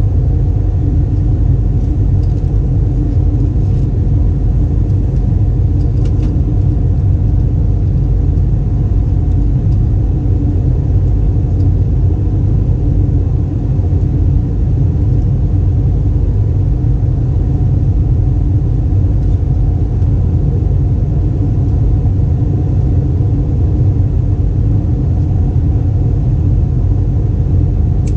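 Steady cabin drone of an Airbus A320 in flight: a constant low rumble of engines and airflow with a few even hums running through it.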